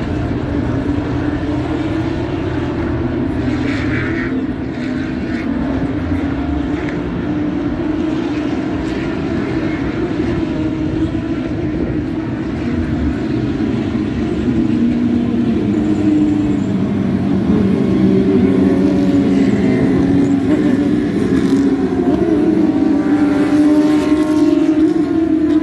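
Formula 1 cars' 1.6-litre V6 turbo-hybrid engines at racing speed, a continuous loud drone. It grows louder about halfway through, and near the end the engine note rises and falls as cars go by.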